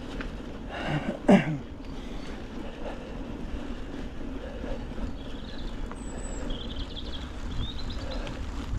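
Mountain bike being ridden on a muddy track, with a steady rumble of tyres and wind on the microphone. A brief loud vocal sound from the rider, falling in pitch, comes about a second in. Faint high chirps are heard in the second half.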